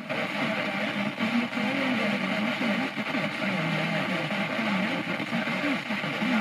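Car FM radio tuned to 87.7 MHz, receiving a weak long-distance signal from Sveriges Radio P1 (Halmstad) under strong interference: a garbled voice wavers beneath a steady wash of hiss and noise.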